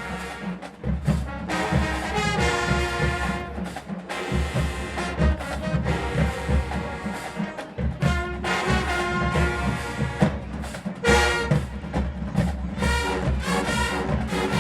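HBCU marching band playing loudly: the brass section plays phrases with short breaks, over steady low drum hits from the drumline.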